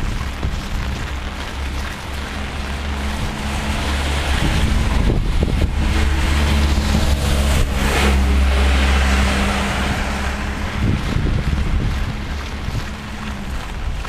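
Storm wind buffeting the microphone, a heavy low rumble with a rushing hiss of wind and rain over it. It swells to its loudest from about four to ten seconds in, then eases a little.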